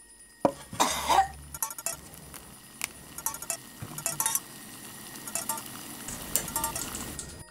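A person coughing harshly, starting suddenly about half a second in, followed by scattered light clinks and rattles.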